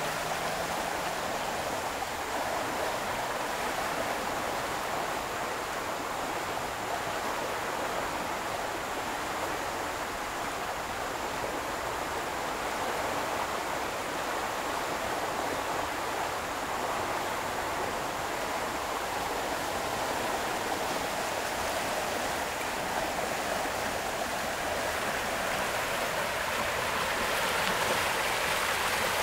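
A flooded creek swollen with storm runoff, its muddy water rushing and churning over riffles and around tree trunks in a steady, unbroken stream noise. It swells slightly louder near the end.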